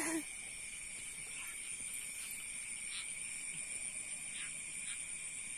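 Night insects such as crickets keep up a steady high-pitched chorus, with a few faint splashes from feet wading through shallow muddy water.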